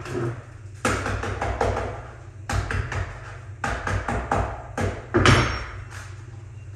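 Abrasive paper being fitted onto the slotted drum of a floor drum sander: the stiff sheet rustling and crackling, with a string of sharp taps and knocks against the drum, the loudest about five seconds in.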